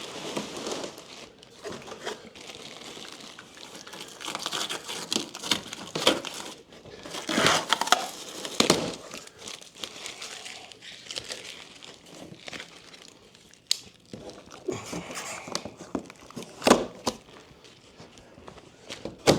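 Speaker packaging being handled: irregular crinkling and rustling, with a few sharp knocks.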